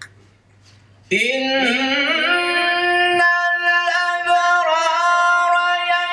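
A man reciting the Quran in the melodic, chanted style through a handheld microphone. He comes in about a second in with a wavering, ornamented line, then holds one long steady note.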